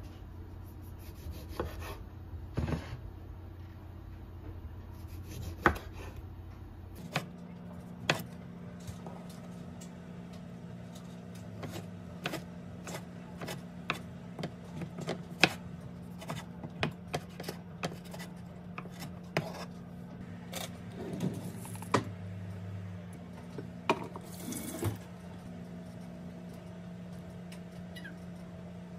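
Kitchen knife cutting tomatoes on a wooden cutting board: irregular, sharp knocks of the blade striking the board.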